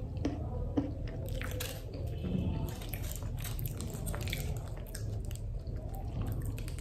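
A person biting into and chewing a piece of chocolate, with short crisp clicks and crunches from the mouth over a steady low hum.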